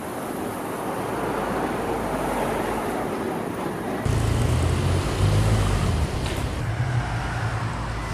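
Street traffic noise from passing cars, swelling over the first few seconds. About halfway through, a deep low rumble comes in suddenly and holds.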